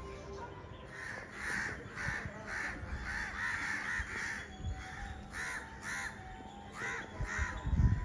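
A crow cawing repeatedly, about a dozen harsh caws in a loose series, some in quick runs. Low wind rumble on the microphone runs underneath, with a loud low thump near the end.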